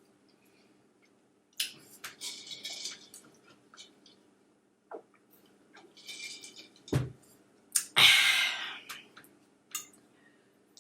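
Close-miked eating: wet chewing and mouth clicks in short irregular spells, with a short low thump about seven seconds in and a louder noisy rush about a second long just after it, the loudest sound.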